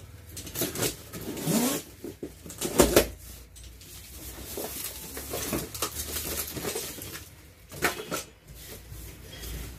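Cardboard carton being opened by hand: packing tape cut and torn away and the cardboard flaps pulled apart, in a series of short rips and scrapes, the loudest about three seconds in and another near the end.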